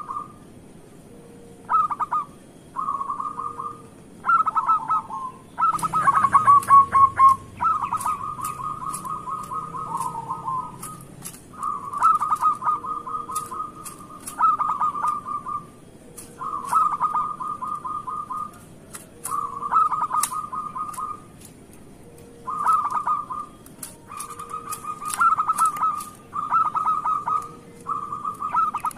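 Zebra dove (perkutut) cooing: a series of short bouts of rapid trilled coos, each about a second long, repeated with brief pauses. A cluster of sharp clicks comes about six seconds in.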